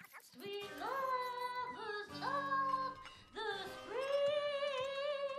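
A woman singing an old English song badly, most notes scooping up into pitch before they are held. Steady low instrumental tones accompany her.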